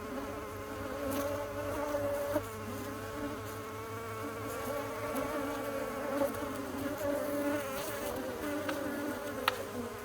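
Bees buzzing: a steady, dense hum of several overlapping wavering pitches, with a couple of brief sharp clicks, one of them near the end.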